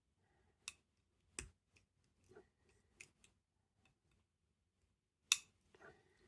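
Scattered faint clicks of a lever pick and tensioner working the levers inside a greasy ERA Insurance five-lever lock, with one sharper click about five seconds in. The levers are gunked up, and the picker suspects they are sticking and moving together.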